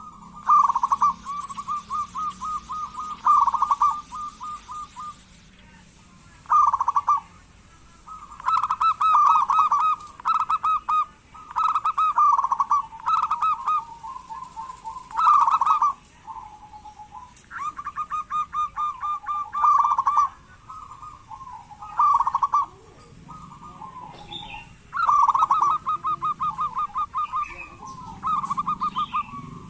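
Zebra doves (perkutut) calling in repeated bouts of rapid trilled notes, each bout a second or two long with short pauses between.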